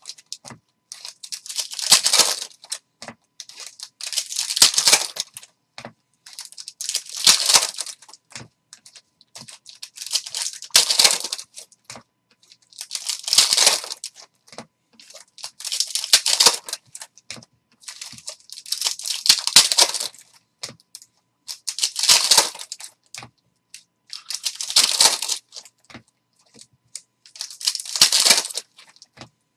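Foil hockey card pack wrappers being ripped open one after another, about ten rips in all, one every two and a half to three seconds.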